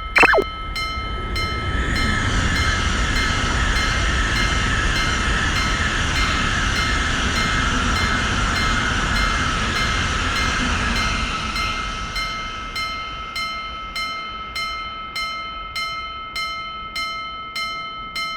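Railroad crossing bell ringing in a steady rhythm while a train passes with a rumbling rush that builds about two seconds in and fades away by about twelve seconds. A short falling whistle-like sound effect comes right at the start.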